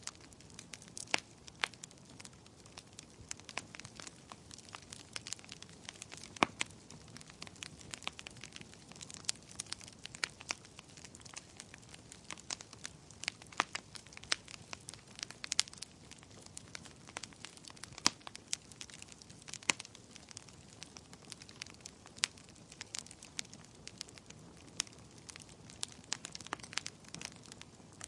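Wood fire burning, with a steady low hiss and frequent sharp, irregular crackles and pops of burning wood.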